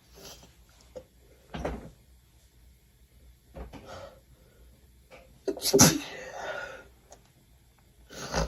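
A person sneezing once, loudly, about five and a half seconds in, with a few shorter, fainter bursts of breath before and after it; the sneeze is set off by a nasal swab.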